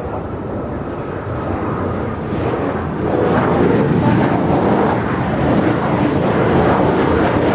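Jet airliner engine noise: a broad, rumbling din that grows louder about three seconds in and stays loud.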